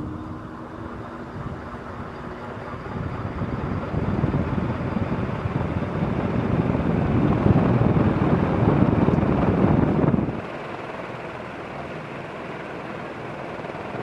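Crompton Greaves High Breeze four metal-blade ceiling fan running at speed, a steady rush of moving air that swells louder, then drops suddenly about ten seconds in to a quieter, even rush.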